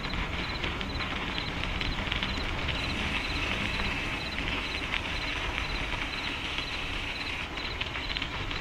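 Mountain bike rolling along a gravel trail: tyres crunching and the bike rattling in a steady stream of small clicks, over a low rumble of wind on the camera's microphone.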